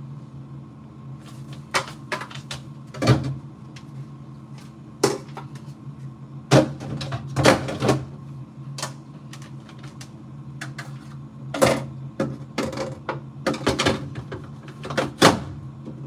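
White plastic refrigerator door bins and shelves being handled, lifted out and slotted back into place: scattered clacks and knocks of hard plastic, heavier clusters about halfway and again near the end, over a steady low hum.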